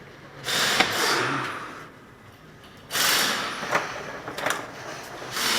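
Inner wheel-well cover being folded and pried back by hand, rubbing and scraping in three bursts with a few sharp clicks.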